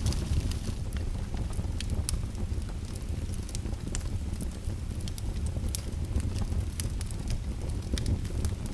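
A fire crackling: irregular sharp pops and snaps over a steady low rumble.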